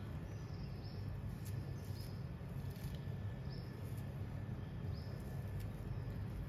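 Meat being torn and shredded apart with the fingers: faint irregular crackly tearing and small clicks over a steady low hum.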